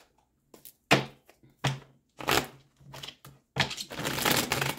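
A deck of tarot cards being handled and shuffled by hand: a few separate slaps and swishes of the cards, then a longer, denser run of shuffling near the end.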